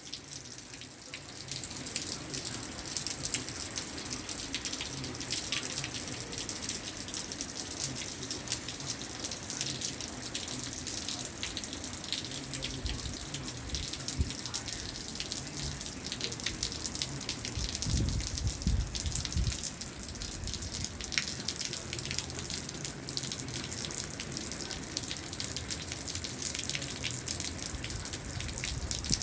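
Rain falling steadily, a dense hiss full of small drop splashes and drips. A brief low rumble comes about two-thirds of the way through.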